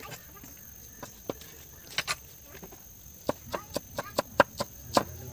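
Cleaver chopping green chillies on a thick wooden log-slice board: sharp knocks of the blade on the wood. A few spaced strikes come first, then a quicker run of about four a second in the second half.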